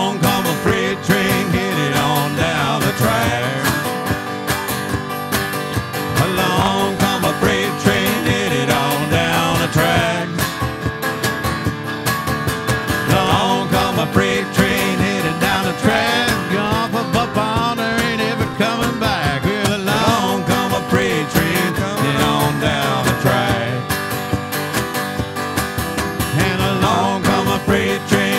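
Live country band playing an instrumental stretch of a song: strummed acoustic guitar and electric guitar under wavering harmonica lines played into the vocal microphones.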